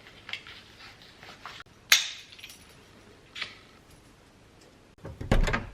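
Scattered light clicks and clinks of small hard objects being handled, with one sharp clink about two seconds in and another softer one a second and a half later, then a few dull thumps near the end.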